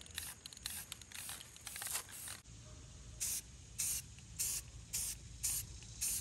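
Aerosol spray-paint can sprayed in short bursts of hiss. The bursts come unevenly at first, then after a short pause they settle into an even rhythm of about two a second.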